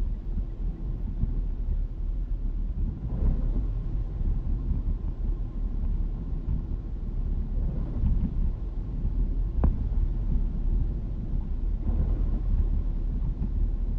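Steady low road and engine rumble heard inside a car cabin at expressway speed, with the windscreen wipers swishing across the glass about every four seconds. A single short click comes about two-thirds of the way through.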